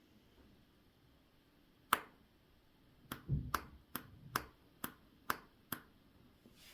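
Sharp small clicks from hand work on a watch at the bench: one click, then a run of seven evenly spaced clicks, about two a second.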